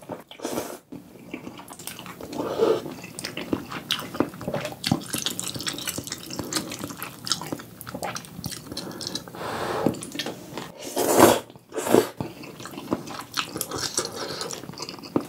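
Close-miked eating sounds of a person slurping and chewing sauce-coated spicy stir-fried instant noodles: wet, sticky mouth smacks and clicks, with two loud slurps a moment apart about three-quarters of the way through.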